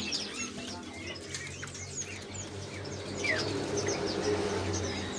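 Many caged birds at a bird-shop kiosk chirping, a busy scatter of short high chirps and quick falling whistles, with some wing fluttering.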